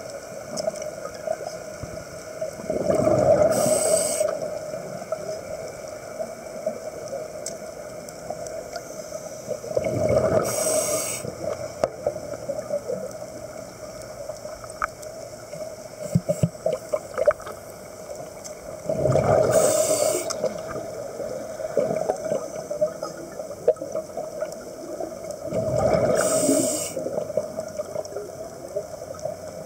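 Scuba diver breathing through a regulator underwater: four exhalations, each a rush of bubbles lasting a second or two, about every seven seconds, over a steady hum.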